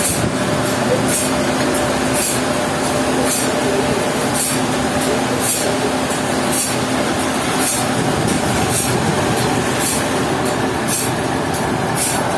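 Sawmill machinery running steadily with a constant hum, and a short high hiss that repeats about once a second.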